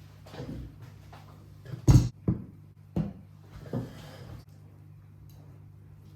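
Household handling sounds: a run of knocks and thuds, the loudest about two seconds in, over a low steady hum.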